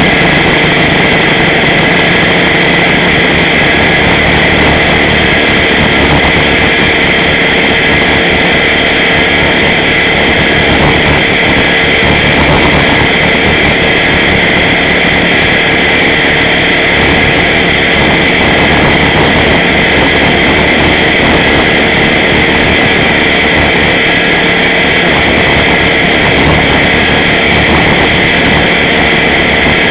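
Align T-Rex 500 electric RC helicopter in flight, heard from its onboard camera: a loud, steady whine from the motor and drive gears with the rush of the spinning rotor. The pitch holds level.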